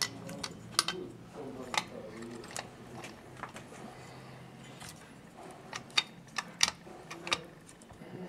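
Irregular light metal clicks and clinks of internal parts being handled and worked loose inside the opened housing of a Makita SDS-Max demolition hammer, with a few sharper knocks about a second in and again near the end.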